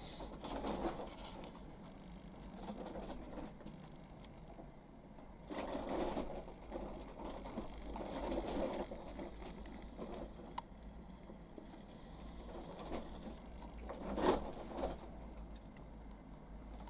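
Faint, irregular rustling and knocking handling noises, with a few sharper clicks and a low steady hum underneath.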